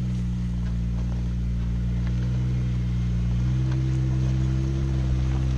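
Lifted Jeep Wrangler's engine running at low revs as it crawls over rocks, a steady low hum that rises a little in pitch and loudness about three and a half seconds in.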